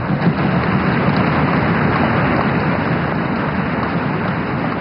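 Large audience applauding, a loud, steady wave of clapping from many hands.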